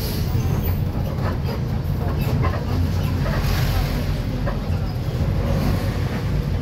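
City bus driving, heard from inside the cabin: a steady low engine and road rumble with the body and fittings rattling.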